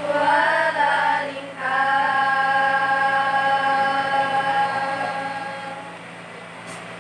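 Female voices singing together without instruments: a short wavering phrase, a brief break about a second and a half in, then one long held note that fades out near the end.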